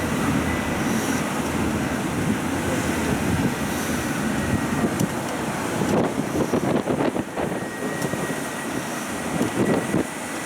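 Steady engine and road noise of a rubber-tyred tourist road train on the move, heard from on board, with a few rougher rattling patches about six seconds in and near the end.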